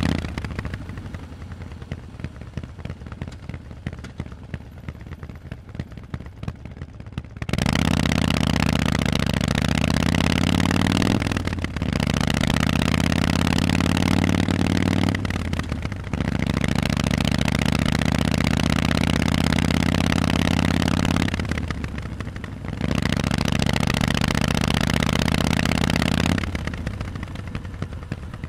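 Harley-Davidson Forty-Eight's air-cooled 1200 cc V-twin through Vance & Hines exhaust pipes. It runs quietly at low revs for several seconds, then pulls hard under throttle in long loud stretches broken by three short dips at the gear changes, and drops back to low revs near the end.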